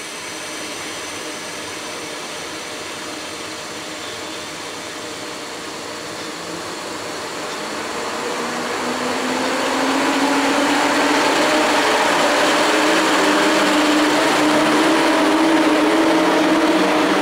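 EP07 electric locomotive pulling a passenger train away from a standstill: a steady whirr, then from about eight seconds in the traction motors' hum climbing in pitch and growing louder as it gathers speed and passes close by.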